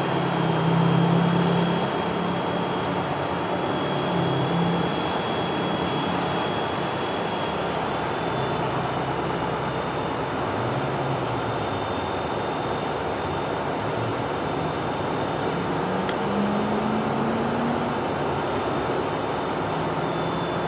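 Siemens Charger diesel locomotive of a Pacific Surfliner train idling steadily while the train stands at the station: a continuous engine drone with a faint steady high whine, and a short rising tone about three-quarters of the way through.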